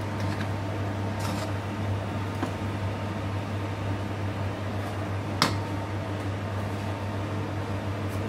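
A metal spoon stirring and scraping cooked rice around a frying pan, with one sharp clink of the spoon against the pan about five seconds in, over a steady low fan hum.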